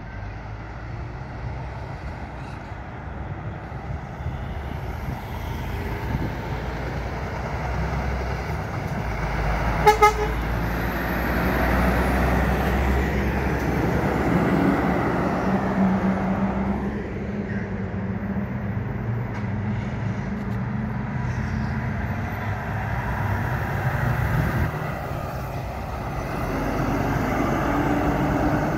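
Heavy trucks driving past at close range, their diesel engines running and tyres on the road, among them a timber truck with a loading crane and a tractor pulling a curtain-side semi-trailer. About ten seconds in, a vehicle horn gives two quick toots.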